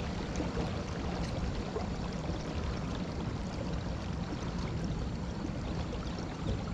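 Water rushing and gurgling along the hull of a pedal-drive fishing kayak under way, a steady noise without breaks.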